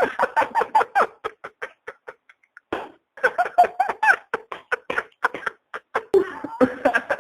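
A man laughing in quick, rapid bursts, breaking off for about a second after the first second and a half, then laughing again.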